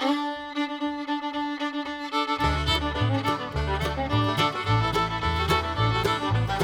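Intro music: a string melody over a held note, joined about two and a half seconds in by a bass line and a steady beat.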